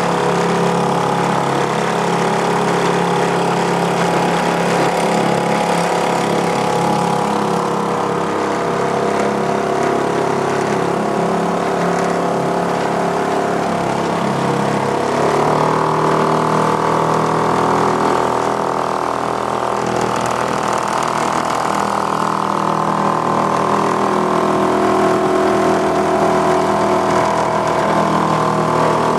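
Small outboard motor pushing a canoe, running steadily; about halfway through its pitch steps up a little and stays there.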